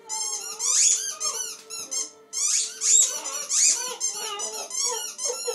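A dog howling on a long, faint, steady note, under a rapid string of short, high-pitched squeaks that come in quick bursts, several each second.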